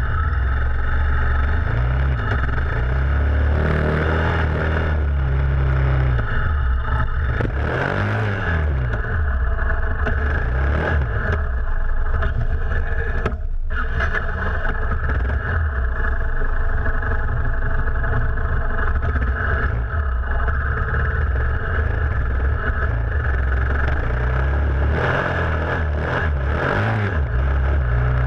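Sport motorcycle's engine running under way, heard close to the rear wheel with heavy wind and road noise. The revs swing up and down a few times, around a third of the way in and again near the end.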